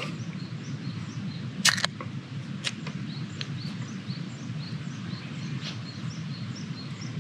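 An aluminium beer can being handled on a wooden camp table: one sharp, loud crack about a second and a half in, a few lighter taps after it, and a light knock near the end as the can is set down. Behind it are a steady low outdoor rumble and faint, evenly repeated high chirps.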